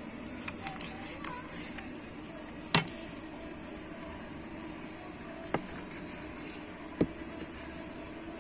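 Three sharp knocks a few seconds apart, the loudest about three seconds in, after a few small clicks in the first two seconds.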